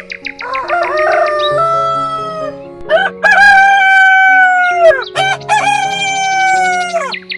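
Rooster crowing twice, each crow a long call that drops off at the end, after a short burst of clucking. Soft background music plays underneath.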